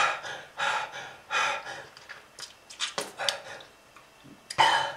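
A person coughing hard over and over, with gasping breaths between the coughs, about one every half second to second and a short lull near the end: a smoker's cough from lung disease.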